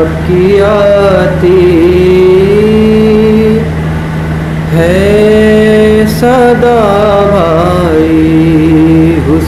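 A solo male voice singing a soz, a Shia mourning elegy, in long drawn-out melismatic phrases that waver and bend in pitch, with a short break for breath about four seconds in. A steady low hum runs underneath.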